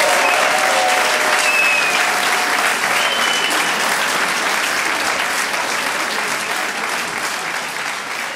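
Theatre audience applauding, the clapping slowly fading away.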